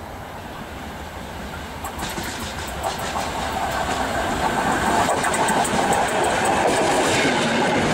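Steam locomotive approaching along the track, heard from between the rails, growing steadily louder. A run of sharp rail clicks sets in about two seconds in and grows denser as it nears.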